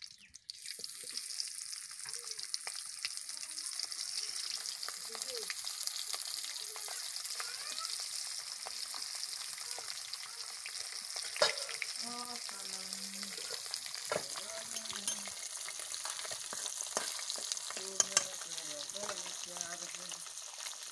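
Chicken feet frying in hot oil in a steel kadai: a steady sizzle that starts about half a second in as they go into the oil, with a few sharp pops from the oil.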